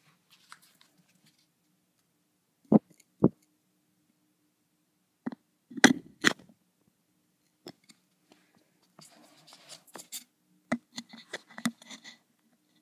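Hands handling a small plastic prize toy right at the microphone: two sharp knocks a half second apart, then a few more clicks and knocks, and a stretch of crackly rubbing and tapping near the end.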